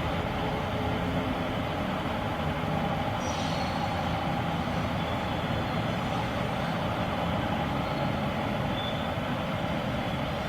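BNSF double-stack intermodal train rolling past, a steady, even rumble of wheels and cars on the rails.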